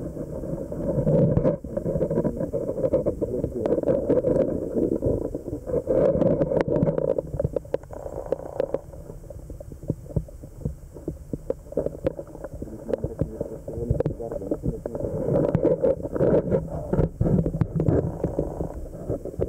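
Muffled low rumble and gurgle of moving water heard through an underwater camera's housing, swelling and easing every few seconds, with many small clicks and knocks scattered through it.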